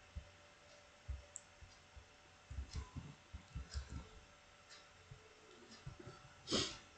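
Scattered clicks of computer keyboard keys and a mouse during code editing, a handful of quick presses bunched together in the middle. A louder, brief rustling noise comes near the end.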